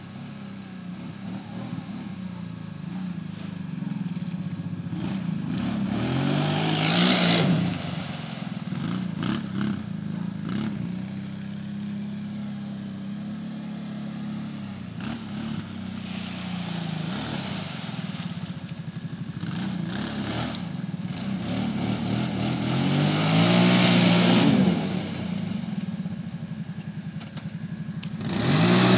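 Kawasaki Brute Force 750 ATV's V-twin engine revving up and down as it is ridden through mud, its pitch rising and falling with the throttle. It swells loudest twice, about a quarter of the way in and again about four-fifths through, and rises again at the very end.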